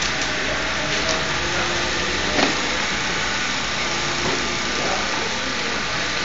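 Steady noise of a large workshop hall with faint voices in the background. About two and a half seconds in comes one short knock as the folded cardboard structure collapses onto the concrete floor.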